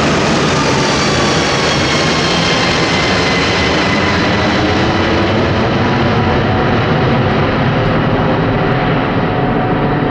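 Airbus A340-500 with landing gear down passing low overhead: a loud, steady jet rumble from its four Rolls-Royce Trent 500 engines. Several whining tones slide down in pitch as it goes by, and the high end fades near the end as it flies away.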